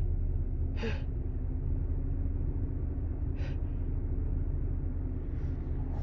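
A woman's short, sharp gasping inhales, two clear ones and a fainter one near the end, as a sneeze builds, over a steady low rumble.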